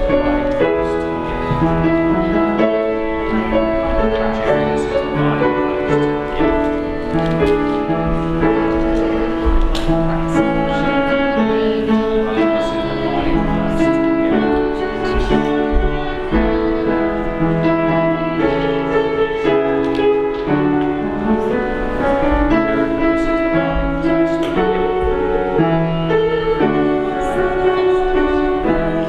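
Slow instrumental keyboard music, held chords with a melody over them, changing about every second.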